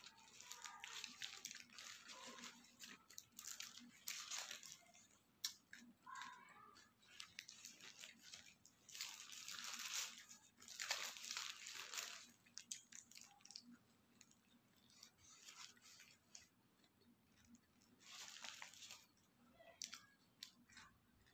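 Paper burger wrapper crinkling and rustling in the hands in repeated bursts, loudest about nine to twelve seconds in, with faint chewing between them.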